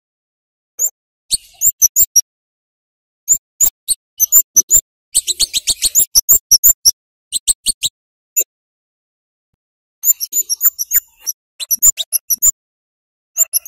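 Scarlet-headed flowerpecker (cabe jawa) calling: bursts of short, very high, sharp "cit" chip notes, with silent gaps between bursts and a fast rattling run of notes about five seconds in.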